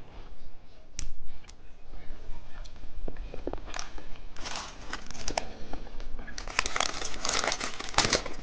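Plastic candy wrapper crinkling and tearing as a packet is handled and opened. A few sharp clicks come first, then bursts of crinkling that grow denser toward the end.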